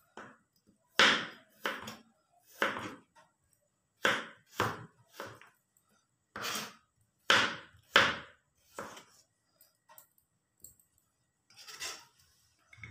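Kitchen knife slicing peeled garlic cloves on a plastic chopping board. There are about a dozen separate cuts, each ending in a knock of the blade on the board, at an uneven pace, with a pause of about two seconds near the end.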